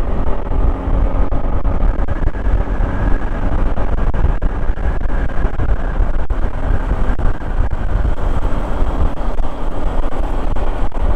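Honda ADV 150 scooter riding along, with its single-cylinder engine droning steadily under loud wind and road noise.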